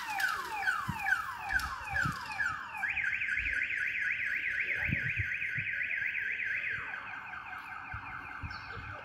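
Car alarm going off and cycling through its tones: a string of quick falling whoops, about three a second, then a fast high warble from about three seconds in, which drops to a lower warble near the seventh second.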